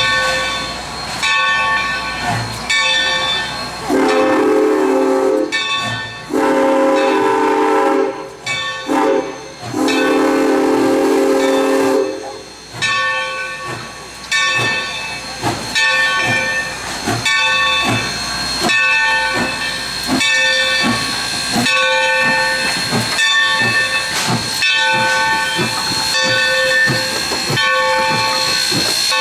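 Steam locomotive's whistle sounding several long blasts, with its bell ringing steadily before and after and steam hissing underneath, as the train readies to pull out of the station.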